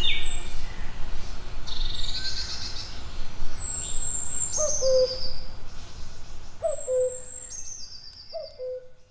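Woodland birdsong: songbirds sing high chirping phrases, and a low hooting two-note call, stepping down in pitch, comes three times in the second half. The sound fades out toward the end.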